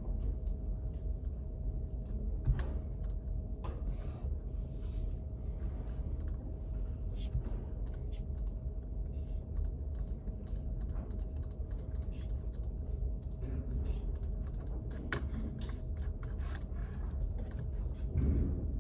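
Typing on a computer keyboard: irregular quick key clicks over a steady low hum.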